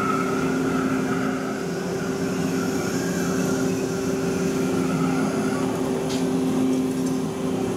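Okuma MU-6300V 5-axis vertical machining center running during touch-probe measurement of a steel mold rather than cutting: a steady machine hum with two held low tones and a fainter higher whine, with a faint tick near the end.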